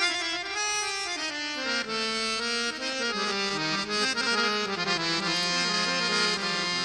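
Harmonium playing the instrumental opening of a Gujarati bhajan: held notes stepping down in pitch, settling on a long low note in the second half.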